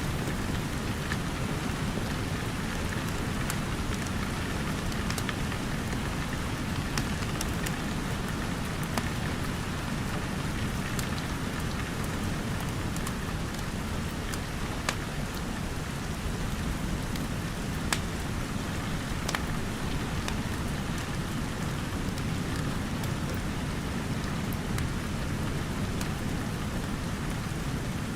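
Steady rain falling, with scattered sharp crackles and pops from a wood fire in a fireplace.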